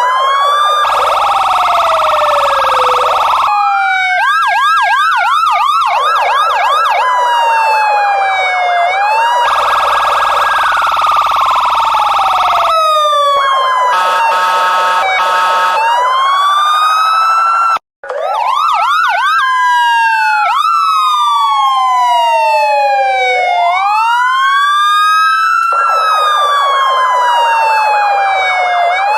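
Police car sirens wailing: the pitch sweeps slowly up and down, with stretches of fast yelping at about four cycles a second and stretches of a steady blaring tone. Several sirens overlap at times, and the sound cuts out for an instant about two-thirds of the way through.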